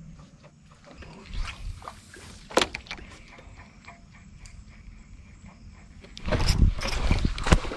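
Light knocks and rustles of rod and reel handling in a small boat, then near the end about a second and a half of loud splashing from a hooked tarpon thrashing at the surface.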